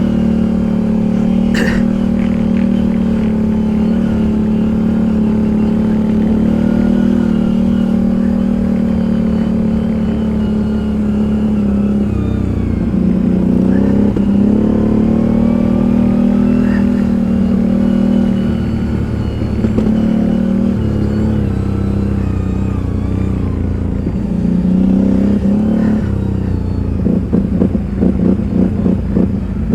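ATV engine running under way, its steady hum dipping and rising again a few times as the throttle changes, and turning to an uneven pulsing near the end.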